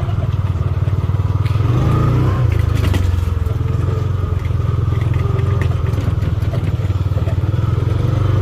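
A farm vehicle's engine running steadily at a low pitch while driving over rough ground, with a few brief rattles and knocks.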